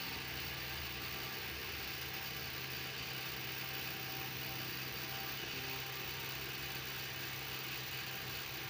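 Steady low hum with an even hiss over it, unchanging throughout, like a running motor or appliance in the background.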